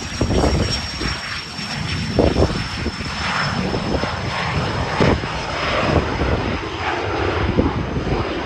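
Small business jet's turbofan engines at takeoff power during the takeoff roll: a low rumble with a thin, steady high whine that drifts slightly lower.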